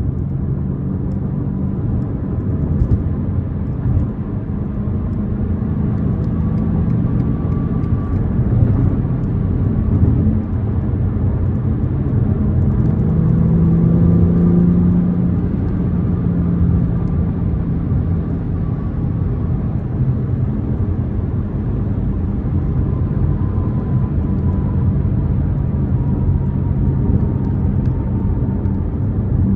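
BMW M4 Competition's twin-turbo 3.0-litre straight-six running steadily on the move, with tyre and road rumble. The engine note firms up and climbs a little about halfway through, then settles.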